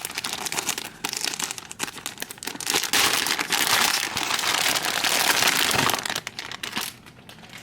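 Product packaging crinkling and rustling as it is opened by hand, a dense run of crackles from about a second in that dies away near the end.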